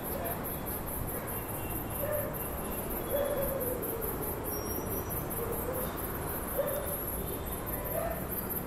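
Crickets chirping in a steady, even high-pitched pulse over a constant low background hiss, with a few faint wavering tones now and then.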